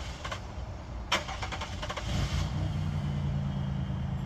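A car engine running with a steady low hum from about two seconds in. It is preceded by a sharp knock about a second in and a quick run of clicks.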